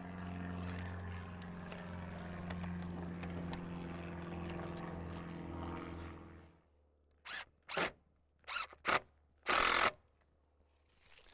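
A steady low hum for about six and a half seconds. Then a cordless drill drives a screw into wood in five short trigger pulls, each a brief zip, the last the longest.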